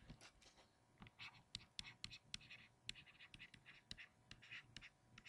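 Stylus tapping and scratching on a tablet, a quick irregular run of short strokes as a word is handwritten in digital ink; faint.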